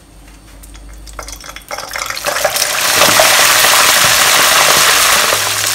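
Pork ribs going into very hot oil in a wok for their second deep-fry, the double fry that crisps the coating. Quiet at first, then about two seconds in a sizzle starts and grows into a loud, steady frying hiss as the oil bubbles hard around the ribs.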